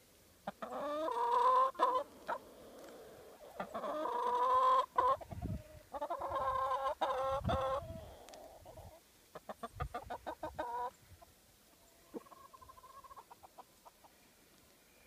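Chickens calling: three long, drawn-out calls in the first eight seconds, then a quick run of clucks about ten seconds in, and a fainter call near the end.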